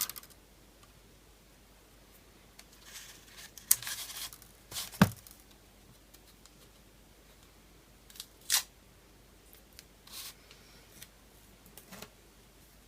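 Scattered small clicks and rustles of hands working on an opened smartphone, pressing the display's flex-cable connector onto the board; two sharp clicks stand out about four and five seconds in.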